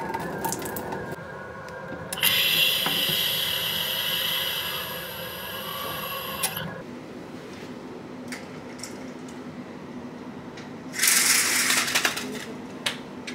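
Water poured from a plastic bottle, splashing over a toothbrush into a bathroom sink for a few seconds. About eleven seconds in comes a short rattle of vertical blinds being drawn open.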